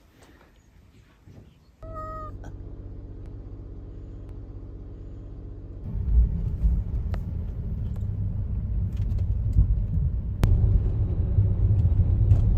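A cat gives one short meow about two seconds in, just as a car's steady low running hum starts. The hum grows louder and deeper about six seconds in.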